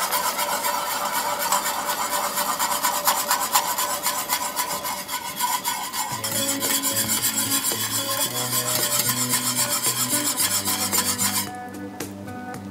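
Wire whisk scraping fast and steadily around a metal pan, whisking a flour-and-water slurry into roast drippings to thicken gravy. The whisking stops about a second before the end.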